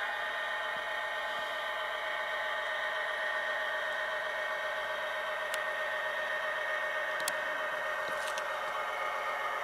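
Tsunami sound decoder playing a steady EMD 710 diesel prime mover sound through the small speaker of a Kato SD90MAC model locomotive as it runs along the track, with a few light clicks in the second half.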